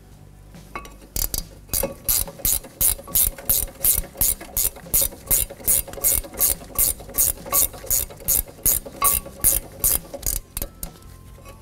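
Ratchet backing out the 17 mm brake caliper bracket mounting bolts, the pawl clicking in quick even strokes about three a second; the bolts are already broken loose and are being run all the way out. The clicking starts about a second in and stops near the end.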